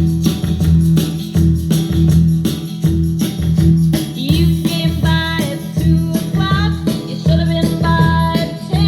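Recorded 1960s-style pop song played through a vacuum-tube amplifier and monitor speakers: a repeating bass line and beat with jingling percussion, and a bending melodic line coming in about four seconds in.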